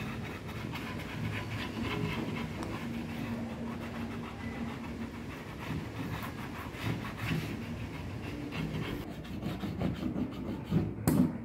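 Hand-squeezed plastic soft-drink bottle pressing contact cement out through a small hole in its cap onto a board edge: quiet, irregular squeezing sounds.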